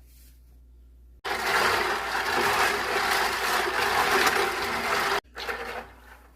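Microfiber cloth rubbing and wiping over small LEGO plastic pieces: a dense scrubbing, rattling sound that starts abruptly about a second in and stops abruptly about four seconds later, then a shorter, fainter bout of rubbing.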